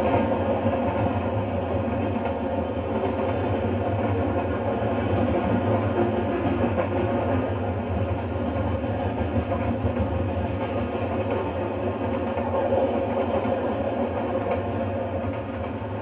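Freight train cars (tank cars, covered hoppers and autoracks) rolling past steadily: a continuous rumble of steel wheels on rail that holds an even level throughout.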